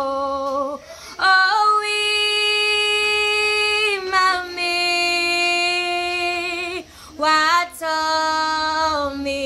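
A woman singing unaccompanied, holding long notes with a slight vibrato, with short breaths about a second in and again about seven seconds in.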